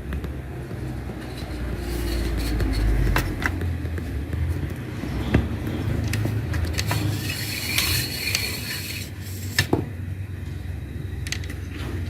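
Handling noise: a series of irregular clicks and knocks over a low rumble, with a short scraping patch about eight seconds in.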